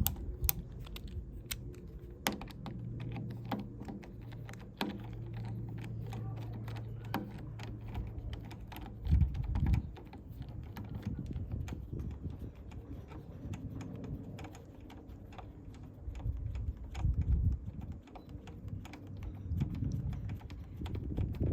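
A screwdriver turning out the retaining screw of a euro cylinder lock in a uPVC door: irregular clicking and scraping of the driver tip in the screw head, with a few low handling bumps.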